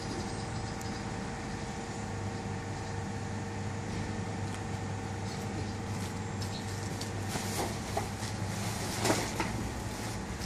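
Steady low mechanical hum, with rustling and knocking of woven plastic sacks being dragged off a lorry's wooden cargo bed in the last few seconds, loudest about nine seconds in.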